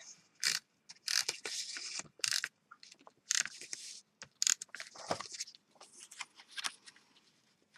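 Tape runner laying adhesive onto the back of a die-cut paper piece, heard as a run of short, irregular scraping strokes mixed with paper rustling, stopping near the end.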